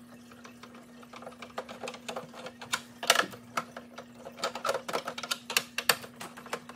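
Screwdriver backing screws out of a clock's plastic back plate: a run of small irregular clicks and scrapes, with a louder clack about three seconds in. A faint steady hum runs underneath.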